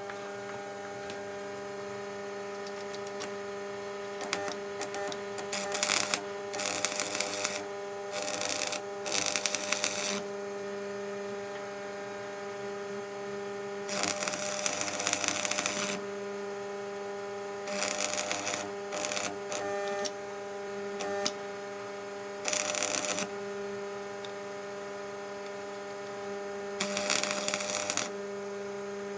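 Electric welder humming steadily, with about eight short bursts of arc crackle as the cracked frame of a 1999 Harley-Davidson Road King is welded.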